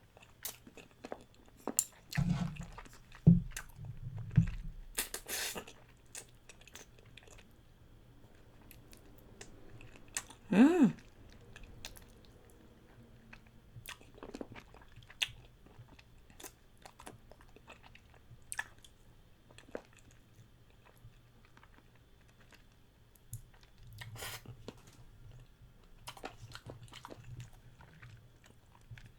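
Close-up mouth sounds of someone eating bone-in chicken feet: intermittent chewing with small crunches and wet clicks. One short hum of the voice comes about a third of the way in.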